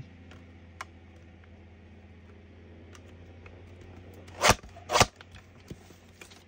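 Two sharp clacks of hard objects handled at a craft table, about half a second apart, over a faint low hum.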